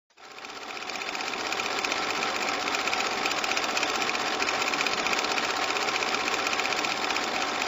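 Old film projector running, a rapid, even mechanical clatter that fades in over the first second or two.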